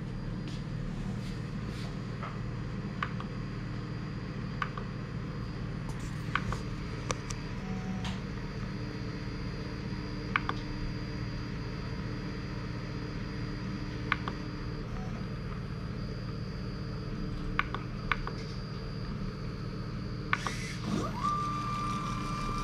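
Scattered sharp clicks over a steady low hum as the rig's menu is stepped through with a rotary encoder. Near the end a small DC pump motor starts and runs with a steady high whine.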